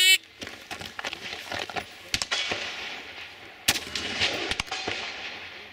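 A shot timer's short start beep, then rifle shots: scattered fainter cracks over the next few seconds, and a quick string of loud shots from a little under four seconds in, fired from a scoped AR-style rifle.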